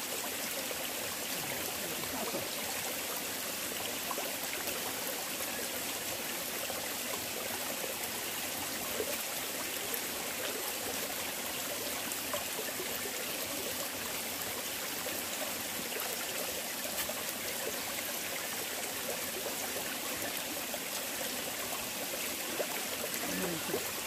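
Mountain valley stream flowing steadily, an even rushing of water.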